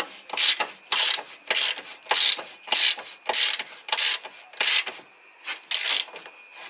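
Socket ratchet wrench clicking as it is swung back and forth in quick strokes, about two bursts of pawl clicks a second, unscrewing a subframe bolt that has already been broken loose.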